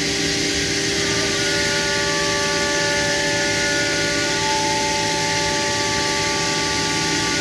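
Anderson CNC machine running: a steady hiss with several high whining tones over it, the tones shifting about a second in and again about four and a half seconds in.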